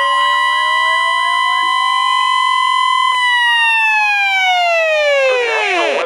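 Weather alert radios sounding a warning alarm: the steady NOAA 1050 Hz warning-alarm tone together with a wailing electronic siren whose pitch climbs to meet it. The steady tone stops about halfway, and the siren then slides down in pitch and dies away near the end.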